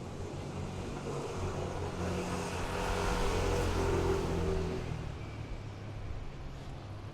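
A car passing by on the street: engine hum and tyre noise build to a peak about three to four seconds in, then fade away.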